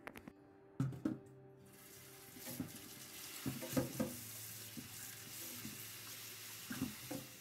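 Two sharp knocks about a second in, then tap water running into a stainless steel bowl of rice vermicelli in a steel sink, with splashing as hands rinse the noodles.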